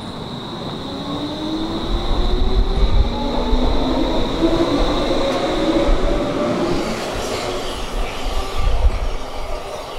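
Stockholm metro train pulling out of the station: its traction motors whine in several tones that rise in pitch as it speeds up, over rumbling wheels on the rails. A steady high tone fades out about six seconds in.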